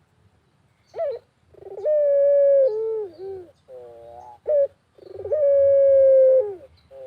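Puter dove cooing. A short rising note comes about a second in, then a long drawn-out coo held on one pitch that falls away at its end. After some softer notes and another short note, a second long coo follows about halfway through.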